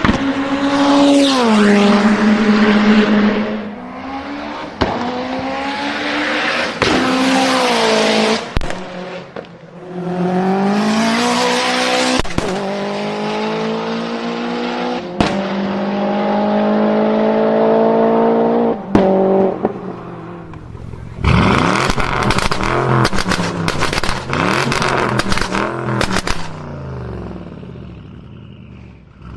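Performance car engine revving up and down, with single sharp exhaust bangs every few seconds. About twenty seconds in it revs hard from low, and a rapid string of exhaust crackles and pops follows before the sound fades.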